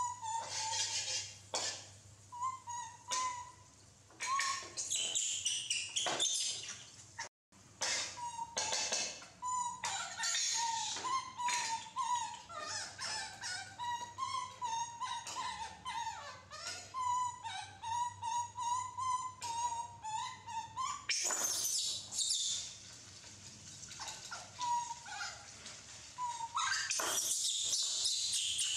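Baby macaques calling: a long, wavering, thin cooing whine with short high chirps and squeaks, over small clicks and knocks of plates and utensils. Near the end, a hiss of butter sizzling as it is poured into the hot wok.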